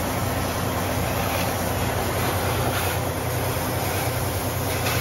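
Compressed air hissing steadily at a semi truck's inner dual tire valve as an air chuck on a glad-hands air hose is pressed onto it, the hiss starting sharply right at the start. A steady low hum runs underneath.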